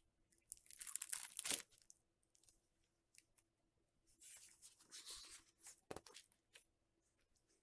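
Hardcover picture book being opened and its pages turned: two rustles of stiff paper, about half a second in and again about four seconds in, with a few light taps between them.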